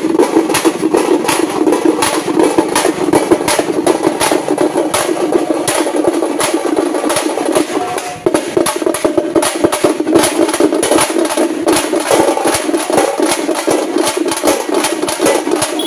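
A group of thappeta frame drums beaten with sticks in a fast, loud, driving rhythm, with a brief break about eight seconds in before the beating picks up again.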